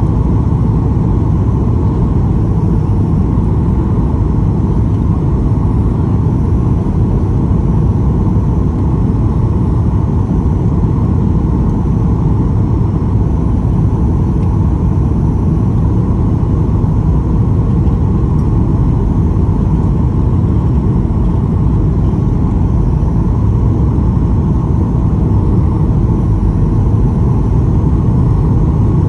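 Steady low roar inside the cabin of a Boeing 737-800 on approach: its CFM56-7B turbofan engines and the rush of air over the wing with its flaps extended.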